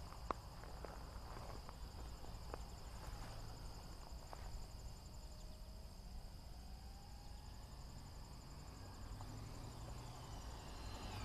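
Crickets chirring steadily in the background, with a faint tone that rises and falls in pitch midway through.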